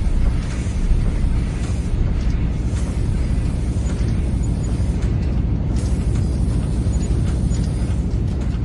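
Factory ambience: a steady, dense rumble of machinery, heaviest in the low end.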